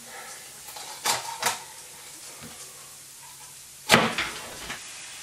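Cleaver chopping raw chicken on a plastic chopping board: two lighter knocks about a second in, then one loud knock of the blade hitting the board near four seconds, followed by a few small taps.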